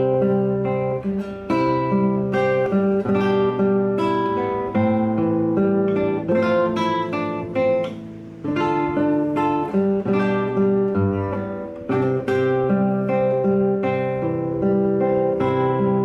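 Acoustic guitar music: plucked and strummed chords played in a steady rhythm, with a brief pause about halfway through.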